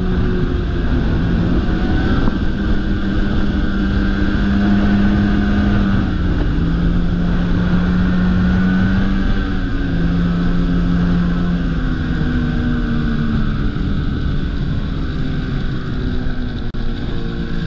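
Ski-Doo snowmobile engine running at trail speed, its note steady but shifting up and down a little with the throttle, over a constant noisy rush of riding.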